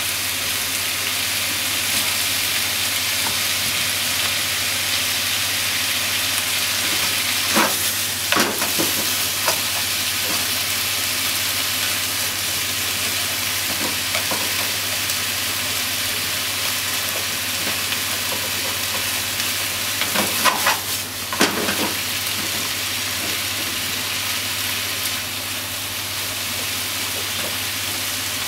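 Pork and vegetables sizzling steadily in a hot frying pan while being stir-fried, with a few sharp clacks about eight seconds in and again about twenty-one seconds in.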